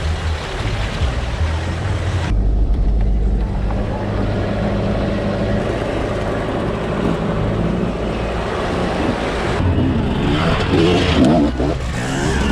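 Four-wheel-drive ute driving a rough track: the engine runs steadily under tyre noise, with the wheels splashing through a water-filled rut for the first couple of seconds.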